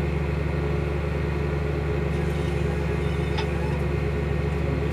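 Massey Ferguson 7725 Dyna-6 tractor's six-cylinder diesel engine heard from inside the cab, running with a steady, even drone.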